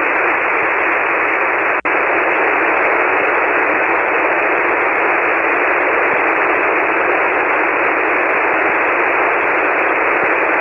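Steady hiss of band noise from a shortwave transceiver on an open 40-metre single-sideband frequency, squeezed into the narrow voice band, with no station talking. The hiss cuts out for an instant nearly two seconds in.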